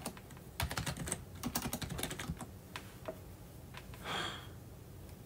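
Typing on a computer keyboard: a quick run of keystrokes, then a few scattered ones, while a password is entered to sign in. A short breathy hiss about four seconds in.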